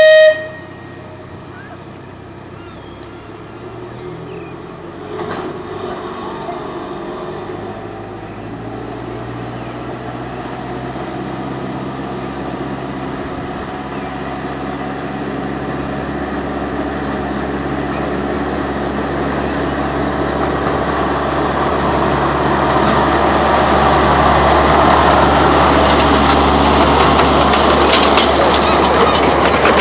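A short, loud horn toot right at the start, then a 15-inch gauge miniature railway locomotive's engine running steadily and growing gradually louder as the train approaches, with wheel and rail noise swelling as it passes close by near the end.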